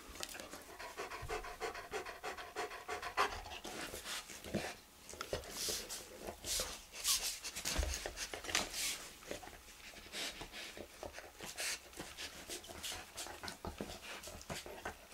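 Panting in short, repeated breaths.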